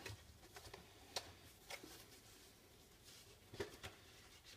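Near silence with a few faint ticks and rustles of a trading card being slid into a rigid plastic top loader.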